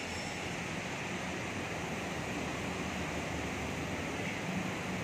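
Steady rushing workshop background noise with a faint low hum, as from fans or machinery running in the shop.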